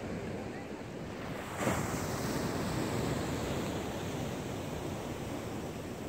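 Ocean surf: a steady wash of waves, with a wave breaking about a second and a half in and its foam hissing on afterwards.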